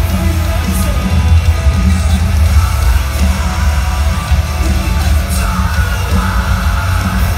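Metalcore band playing loud and live over a concert PA: heavy bass and drums with guitars, and shouted vocals over the top.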